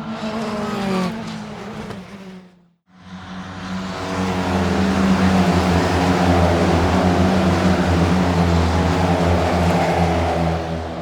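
Racing car engines, two separate recordings. The first dies away with a falling note about two and a half seconds in. After a brief silence, another fades in and runs loud, its note slowly dropping in pitch as it goes by.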